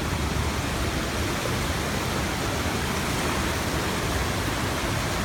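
Rushing floodwater of a swollen river, a steady, unbroken noise.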